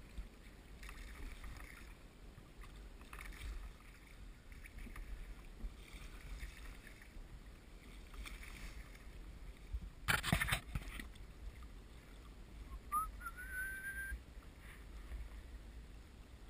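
Oar strokes of a rowing boat rowed Venetian-style: a soft swish of the blade through the water about every two seconds or so. A louder burst of noise comes about ten seconds in, and a short rising whistle a few seconds later.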